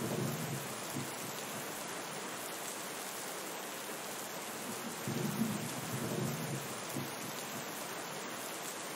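Steady rain falling, with low rolls of thunder: one fading out in the first second and another about five seconds in that lasts about two seconds.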